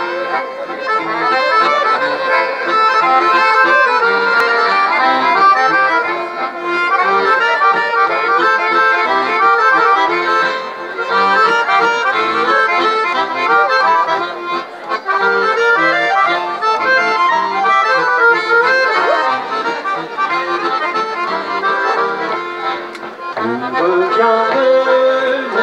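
Chromatic button accordion playing a traditional French dance tune on its own, melody over chords, with no fiddle.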